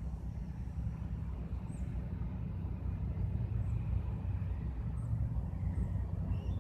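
Steady low rumble of a vehicle engine or traffic, with a few faint high chirps.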